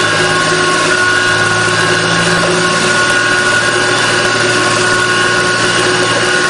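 A loud, steady mechanical drone like a running motor or power tool, with several constant whining tones over a noisy hum.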